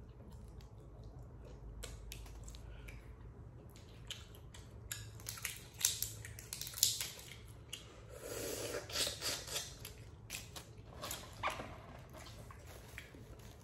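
Boiled crawfish being cracked and peeled by hand and eaten: scattered snaps and crackles of shell with chewing, busiest in the middle, and a longer wet sound a little past halfway.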